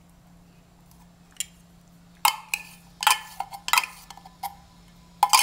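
Glass cups and dishes clinking and knocking on the table as they are handled: a quick run of sharp clinks, each briefly ringing, starting about two seconds in over a faint steady hum.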